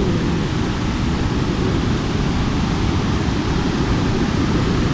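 Steady rush of water flowing out of a rock tunnel and down a small waterfall, where two streams join.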